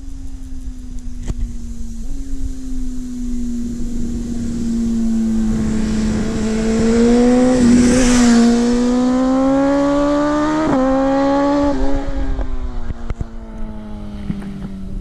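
BMW S1000RR sportbike's inline-four engine passing by at speed. It swells as the bike comes through the corner and is loudest about eight seconds in, with a rush of tyre and wind noise. The revs then climb as it pulls away, with a sudden change in pitch a little after ten seconds, before the sound fades.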